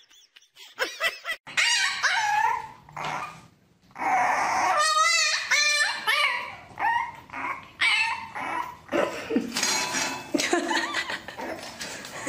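Puppy whining and yipping: a string of high, wavering calls of different lengths, with a quick run of short yips about halfway through.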